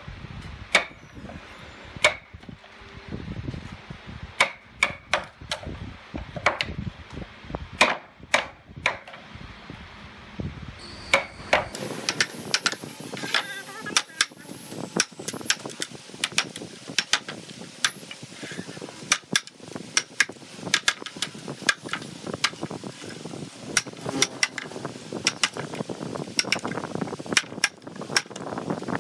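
Wooden mallet striking a wood chisel that is chopping notches into a timber board: a run of sharp knocks, spaced out at first and coming quicker after about twelve seconds.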